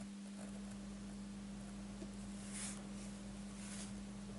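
Pioneer SX-590 stereo receiver playing through loudspeakers with no signal: a steady low hum, with two brief bursts of scratchy noise about halfway through as the volume knob is worked. The scratching is the sign of what the technician suspects may be a dirty volume control potentiometer.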